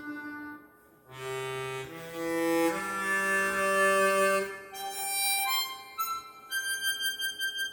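Seydel Symphony chromatic harmonica with its stock covers, played through a studio sound system. A phrase of low chords climbs into single higher notes; the last held note pulses with vibrato and dies away near the end.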